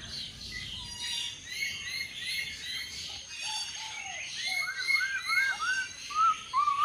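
Several birds calling at once: overlapping series of short, arched chirps at different pitches, getting busier after about four seconds.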